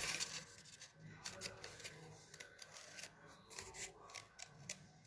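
Scissors snipping through paper, a quiet run of short, irregular cuts.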